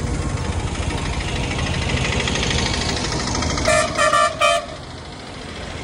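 A vehicle horn honks three short times in quick succession a little past halfway, over steady city street-traffic noise.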